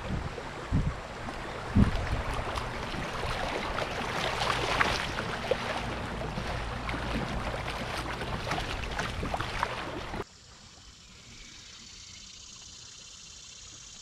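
Kayak paddle strokes through a shallow river riffle: rushing, splashing water with drips off the paddle blades, a low rumble, and a couple of sharp knocks in the first two seconds. About ten seconds in it cuts suddenly to a quieter, steady hiss of flowing water.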